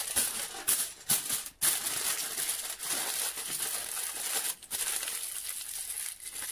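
Aluminium foil crinkling and rustling as a foil-wrapped food parcel is twisted and squeezed closed by hand, with a couple of short pauses.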